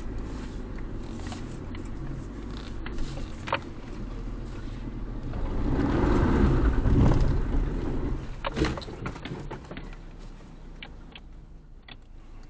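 Suzuki Jimny's 1.5-litre four-cylinder engine running at crawling speed over rough forest ground, heard from inside the cabin, with scattered sharp clicks and knocks. The engine gets louder for a couple of seconds about halfway through, then settles back.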